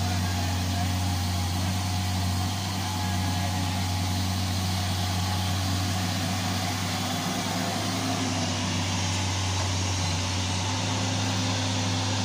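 Diesel engine of a Tata Hitachi hydraulic excavator running steadily under load as it digs and lifts a bucket of earth.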